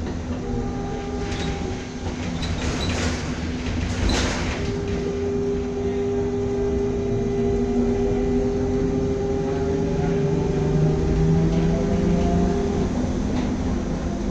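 Ikarus 415T trolleybus running along a street, heard from inside the cabin: the electric traction drive whines steadily over road rumble. A few sharp rattling knocks sound in the first few seconds.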